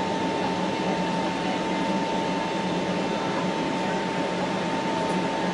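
Airbus A320neo cabin noise during the climb after takeoff: a steady engine and airflow rush heard from a window seat beside the engine. A steady whine from the engine runs through it.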